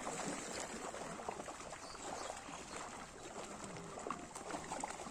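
Water trickling and splashing around a seine net as it is hauled in by hand through shallow pond water, with many small scattered splashes, some from fish at the surface.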